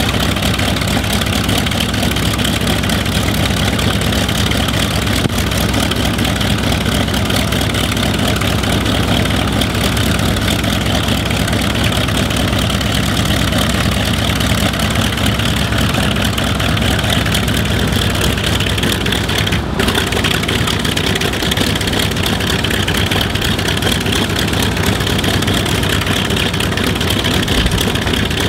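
Vought F4U-5N Corsair's Pratt & Whitney R-2800 eighteen-cylinder radial engine idling steadily on the ground, propeller turning.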